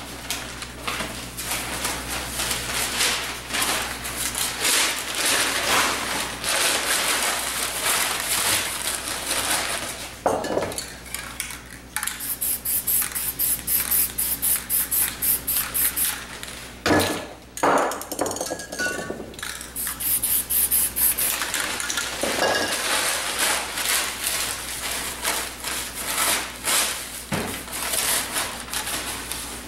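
Aerosol spray-paint can hissing in repeated bursts, broken by a few sharp knocks and clatters, with sheets of newspaper rustling.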